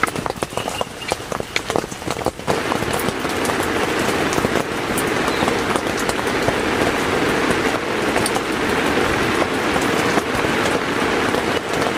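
Heavy rain, at first heard as many separate drops striking, which becomes a dense, steady downpour about two and a half seconds in.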